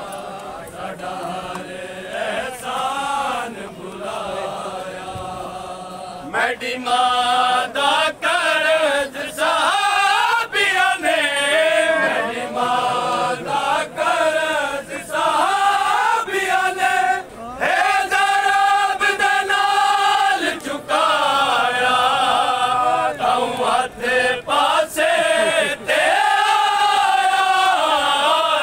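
Men's voices chanting a vain, a Shia mourning lament, together in a slow, wavering melody. It grows much louder about six seconds in.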